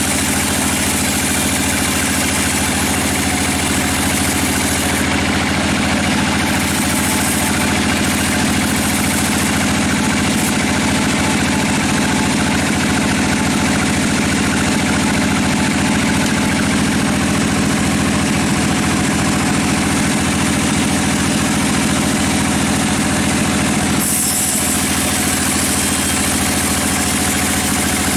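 Sawmill machinery running steadily: an engine-driven saw with an even mechanical hum and constant noise. A high hiss fades out about five seconds in and returns near the end.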